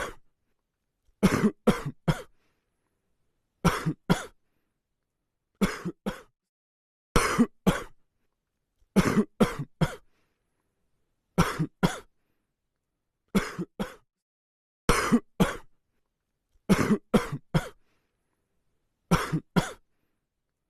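A child's dry cough: short, sharp coughs in bouts of two or three, a bout every couple of seconds, with silence in between.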